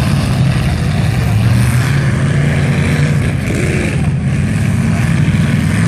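Several demolition derby cars' engines running loudly together in the arena.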